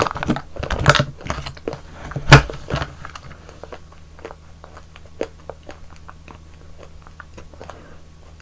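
Close-miked eating of yogurt ice cream: a burst of biting and wet, crunchy mouth sounds in the first three seconds, the loudest about two and a half seconds in, then quieter chewing with small scattered mouth clicks.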